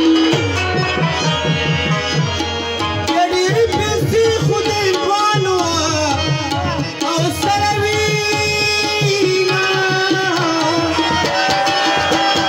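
Harmonium and hand drum playing a Pashto tapay folk tune live: fast, steady drumming under a sustained, wavering melody.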